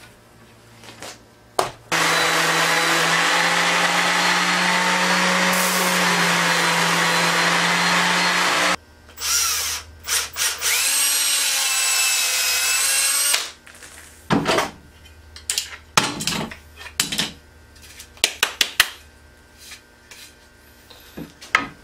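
Cordless drill boring into cedar: one steady run of about seven seconds, then a shorter run a second later with a whine that wavers in pitch. Scattered knocks and clicks of wood and tool being handled follow.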